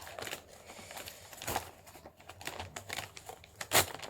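Glued shipping packet being torn open: irregular crinkling and tearing of packaging, with one loud sharp rip near the end.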